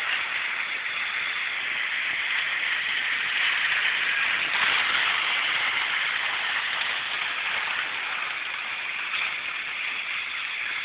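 Hornby model trains running along the track, making a steady, even hiss.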